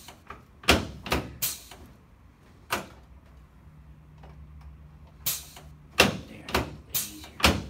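Chiropractic adjustment of the shoulders, acromioclavicular and sternoclavicular joints and front ribs: a series of about nine sharp cracks and thuds, with a pause of a couple of seconds in the middle.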